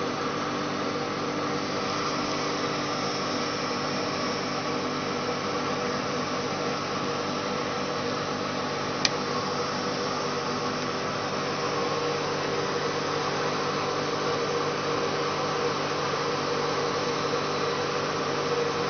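Blower fan running steadily: a hum with several fixed tones over even air noise. A single sharp click comes about nine seconds in.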